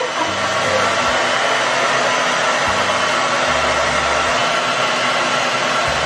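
Handheld hair dryer blowing steadily as it dries a wet cat's fur.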